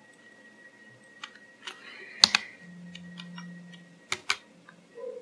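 Sharp clicks of a computer mouse and keyboard, a few singly and then a loud pair a little past two seconds in and another pair about four seconds in. A brief low hum sounds for about a second just after the loud pair.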